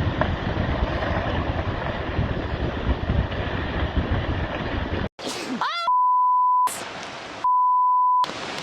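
Wind buffeting the microphone over water noise for about five seconds, then it cuts off and a voice shouts rising in pitch, followed by two steady censor bleeps of just under a second each.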